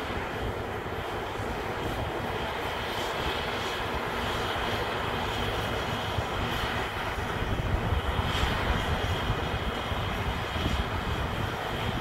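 New Holland combine harvester running steadily as it picks up and threshes canola swaths: a continuous engine and machinery drone, with wind rumbling on the microphone.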